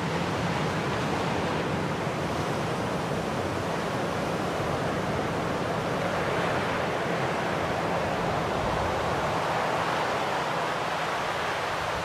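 Sea surf: waves washing over a rocky shore, a steady rushing noise.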